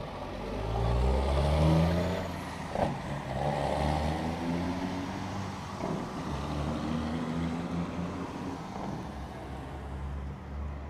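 Heavy diesel truck engine pulling away and accelerating, its pitch climbing, dropping and climbing again as it works up through the gears. A single sharp clack comes about three seconds in.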